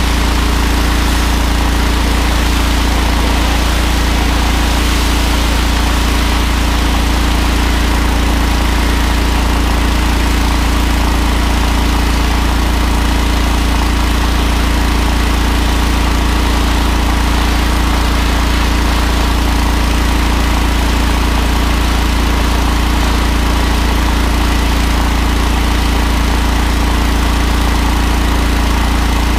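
Honda GX690 V-twin petrol engine running steadily under load, driving a 30-litre-per-minute 3000 psi Interpump, with the constant hiss of the high-pressure water jet spraying onto concrete.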